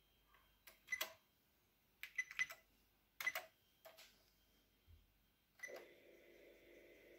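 Keystrokes on a Juku E5101 computer keyboard: a string of separate clicks, some in quick pairs, as a short command is typed. A steady hum starts near the end.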